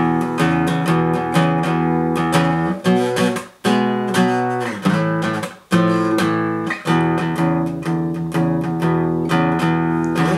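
Acoustic guitar strumming chords in a steady rhythm, with two brief breaks in the middle.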